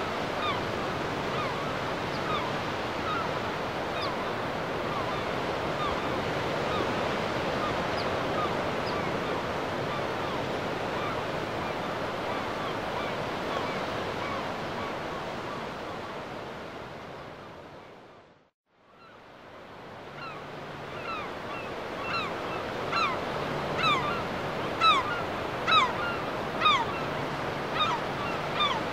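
Surf washing and breaking on a reef shore as a steady rush. It fades out to silence about two-thirds of the way through, then fades back in. Over it come short downward-sliding bird chirps, more frequent and louder near the end.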